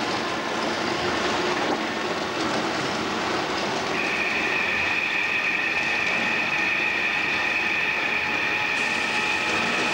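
Special-effects tornado rig sending up a jet of white vapour, with a loud steady rushing hiss; a high whistling tone joins about four seconds in and holds.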